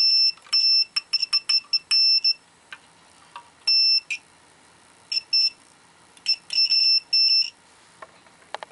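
Digital multimeter's continuity beeper sounding in irregular, broken beeps as the probe tip scrapes on and off the grounded metal case; each beep means a continuous path to ground, a good ground. Small clicks of the probe on metal come between the beeps.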